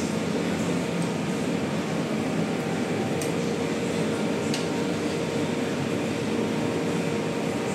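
Steady rushing room noise with a low hum, the sound of restaurant ventilation, with two faint clicks near the middle.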